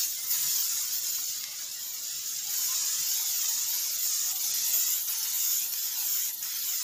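Aerosol spray can of dye-penetrant developer hissing steadily as it is sprayed along a weld seam. It lays down the white coat of the penetrant test, which shows up any flaws in the weld.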